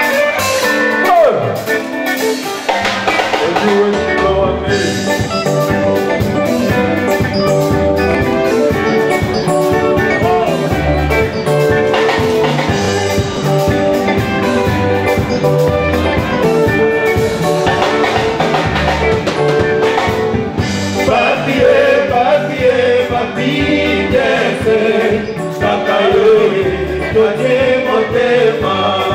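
Live band music: singers with microphones over drums and guitars, with a steady beat.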